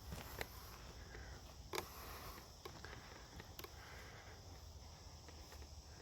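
Faint outdoor background with a steady high insect chirring, broken by a few light clicks about a second or two apart.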